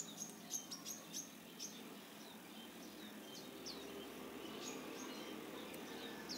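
Small birds chirping in the background: short, high, falling chirps, several in quick succession in the first second or so, then scattered through the rest.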